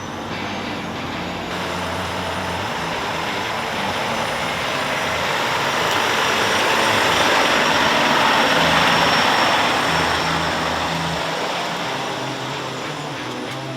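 Heavy semi truck driving past, its engine and tyre noise growing louder to a peak about eight seconds in, then fading away.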